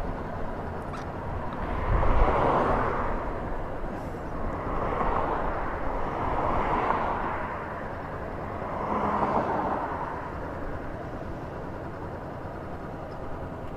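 Road traffic passing a stopped motorcycle: four cars go by one after another, each a swell of tyre and engine noise that rises and fades over a second or two.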